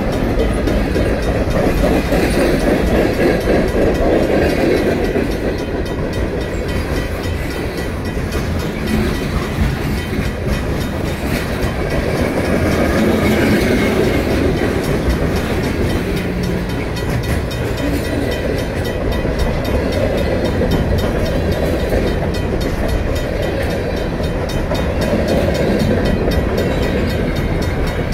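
Union Pacific freight train's cars rolling steadily past at low speed, wheels clattering over the rail joints: refrigerated boxcars, then covered hoppers near the end.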